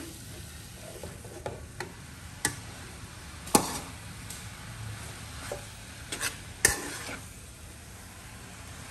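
Stir-frying noodles and vegetables in a metal wok: a steady sizzle, with a metal spatula scraping the pan and striking it in several sharp clacks, the loudest about three and a half seconds in and near seven seconds in.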